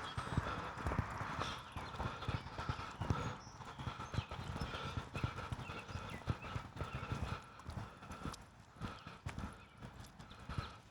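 Footsteps of a person walking, an irregular run of low, dull steps about two to three a second.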